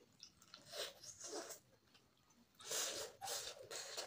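Close-up eating noises: a man sucking curry off his fingers and chewing, with a few short, sharp breaths through the nose. The sounds come in brief bursts, with a busier stretch in the last second or so.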